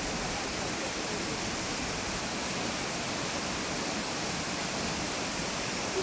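Waterfall cascading down rock slabs: a steady, even rush of water.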